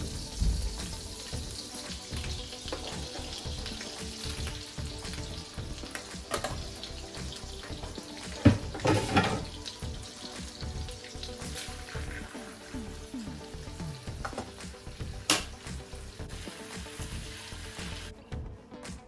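Butter sizzling steadily as it melts in a hot wok. About eight seconds in, a louder burst of crackling and clatter comes as chopped garlic goes into the butter, and there is a single sharp click later on. Near the end the sizzle drops away.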